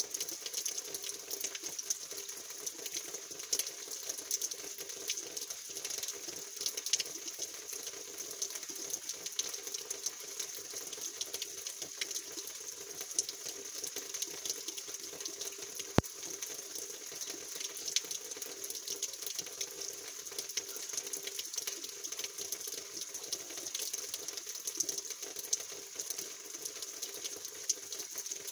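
Rainwater pouring steadily from a roof drainspout and splashing, with dense small drip ticks from the falling rain. About halfway through comes one sharp click.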